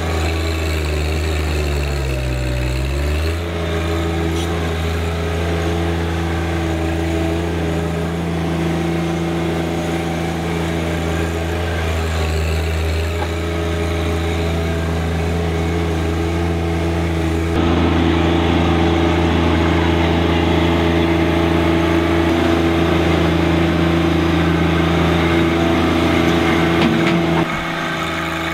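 John Deere 1025R compact tractor's three-cylinder diesel engine running steadily while working a loader. Its pitch dips and recovers about two to three seconds in, and it gets louder and rougher about two-thirds of the way through.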